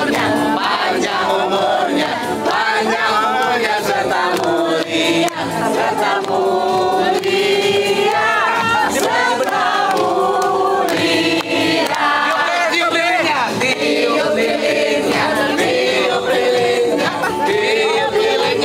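A group of people singing together, with long held notes that glide between pitches.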